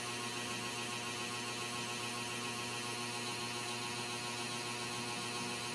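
A steady, even electrical hum with a light hiss under it, unchanging throughout.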